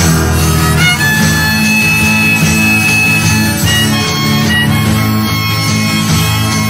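Instrumental music: a sustained lead melody with a few sliding notes over a steady low accompaniment.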